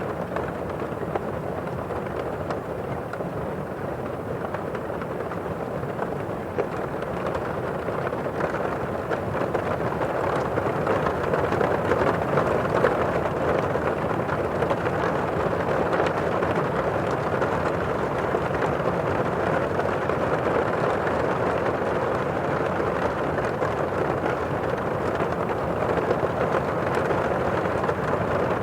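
Heavy rain heard from indoors: a steady, muffled hiss with the high end damped by walls and windows, growing a little louder about a third of the way in, with a few faint drop ticks.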